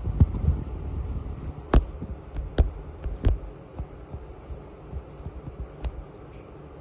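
Low rumbling hum of a handheld phone filming close to an aquarium, with four sharp clicks or taps spread through the first six seconds.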